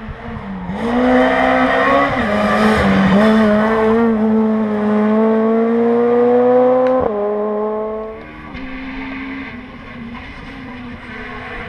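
Rally car engine at full throttle, loud, its pitch climbing steadily for several seconds as it accelerates, then breaking off sharply about seven seconds in. After that, a fainter rally car engine runs further off.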